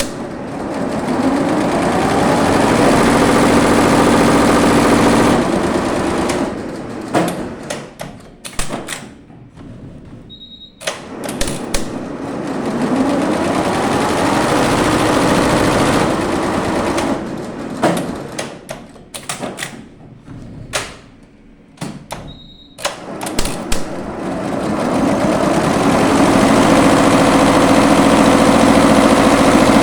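Computerized embroidery machine stitching in repeated runs. The motor speeds up with a rising whine, runs steadily for several seconds, then stops for a series of sharp clicks. A short electronic beep comes about a third and two thirds of the way through, before each new run.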